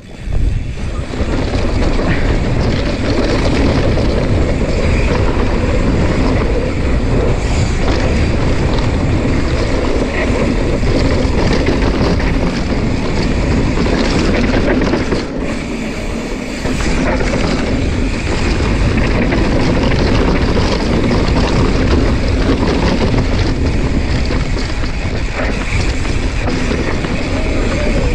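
Steady rush of wind buffeting the camera microphone, mixed with tyre and dirt noise, from a mountain bike being ridden along a dirt trail, with a brief lull about fifteen seconds in.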